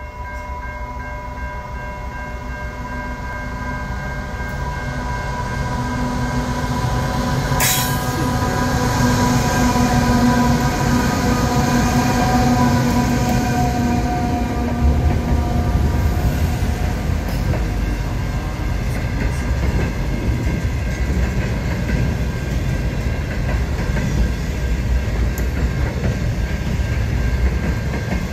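Aurizon freight train with two diesel locomotives passing close by. It grows louder over the first eight seconds, with a single sharp bang about eight seconds in, and then settles into a steady rumble and clatter of wheels on rails.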